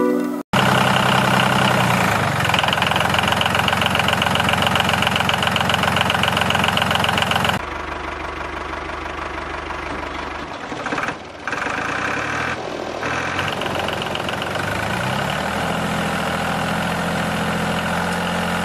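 Small motor and gear train of a homemade model tractor running steadily with a fast rattling whine as it pulls a trolley loaded with sand. The sound drops in level partway through.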